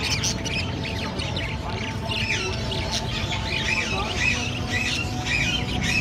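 A crowd of caged budgerigars calling together: many short rising and falling chirps overlapping, growing denser about two seconds in.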